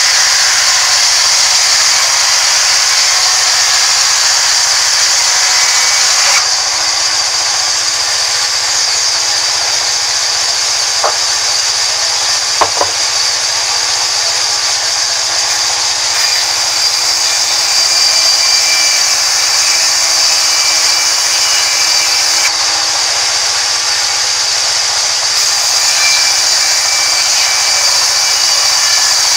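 Large sawmill band saw ripping lengthwise through a rain tree log: a steady, loud, high-pitched hiss of the blade in the wood. The sound drops a little in level after a few seconds, and two short knocks come near the middle.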